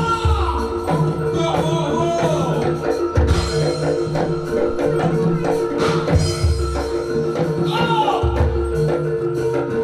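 Javanese gamelan music accompanying a jaranan dance: drum beats and struck metallophone notes over steady held tones, with a high sliding melodic line on top.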